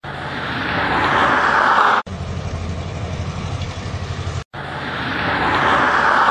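Vehicle noise on snowy roads in short, abruptly cut segments. A hissing rush grows louder for about two seconds. Then comes a steady, quickly pulsing low rumble of a car driving, and then the same building rush again.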